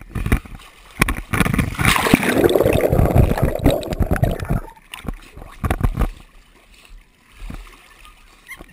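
Pool water splashing and sloshing as a dog swims close to the camera. From about two seconds in the sound turns muffled and bubbling for a couple of seconds as the camera goes under the surface, then after about five seconds there are a few separate splashes and it quiets down.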